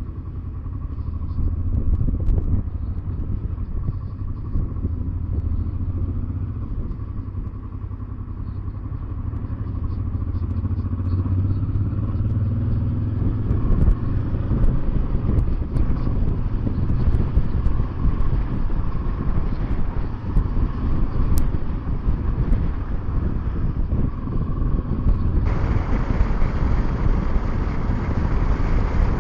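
Honda Transalp 700's V-twin engine running as the motorcycle rides along, heard with road and wind rush. The steady engine note of the first half gives way to a rougher, louder rush about halfway through.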